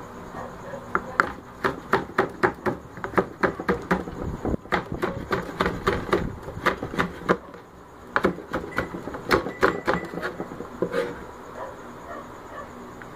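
Kitchen knife chopping spring onions on a plastic cutting board: quick knocks of the blade on the board, about three or four a second, in two runs with a short break between them.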